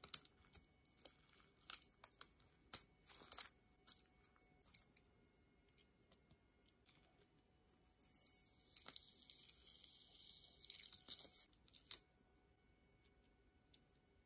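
Adhesive vinyl sheet being peeled off its backing paper, a string of sharp crackles and crinkles over the first few seconds. Then a gloved hand rubs across a sheet of red vinyl with a steady hiss lasting about four seconds.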